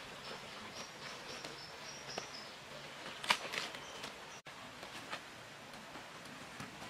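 Banana leaves rustling and crackling as they are folded by hand around a packet, with a sharper crinkle about three seconds in. A thin, high insect buzz sounds in the background during the first couple of seconds.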